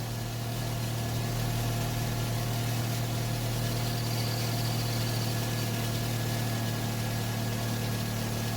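Steady low engine hum, idling evenly with no change in pitch or level.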